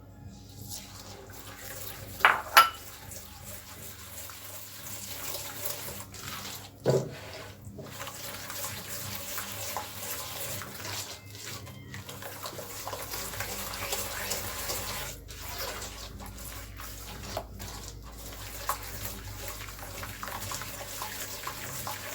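Eggs being mixed by hand into a wet butter, sugar and oil dough in a bowl: a steady wet sloshing and stirring with a few short pauses. There are two sharp knocks about two seconds in and another about seven seconds in.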